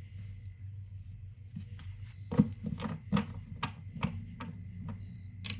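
Tarot cards being handled on a table: a quick run of light taps and clicks, the sharpest about two seconds in, over a steady low hum.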